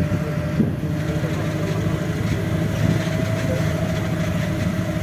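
Safari bus engine running steadily as the bus drives, a low drone with a steady higher whine over it.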